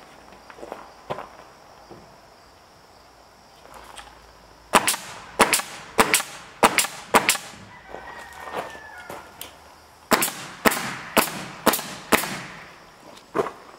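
Pneumatic nail gun driving nails through rough-sawn boards into the wall framing. It fires five sharp shots about two a second, pauses, fires another five at the same pace, then two more near the end.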